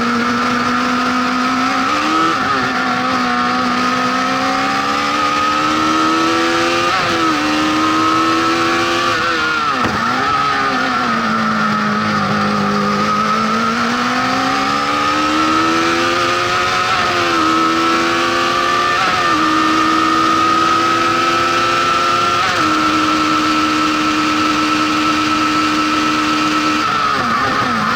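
Honda CBR1100XX inline-four motorcycle engine in a lightweight Fiat 126 prototype, driven hard: the revs climb and fall repeatedly through gear changes and lifts off the throttle, with a stretch held at steady revs late on.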